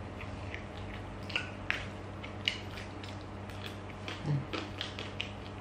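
Soft chewing and mouth sounds of people eating sushi: scattered faint clicks and smacks, over a steady low hum.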